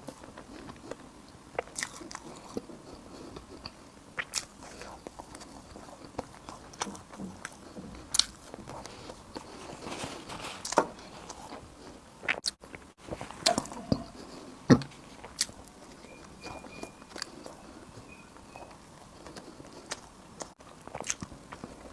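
Close-miked eating: a person biting and chewing Chinese food, with irregular crisp crunches and mouth clicks. A few louder bites come around the middle.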